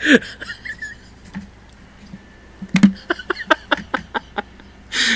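A man laughing in short breathy bursts, with no words.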